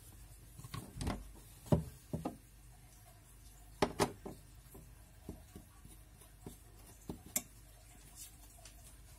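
Knocks and clinks of kitchen things being handled on a tiled counter: a knife and a plastic cutting board shifted, and a glass plate of flour with a metal spoon set down. The knocks come as a scattered series, the loudest about two and four seconds in.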